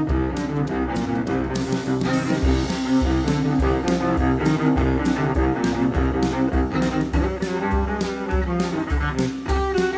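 Cello playing a melodic instrumental passage over a low, steady beat, with no singing.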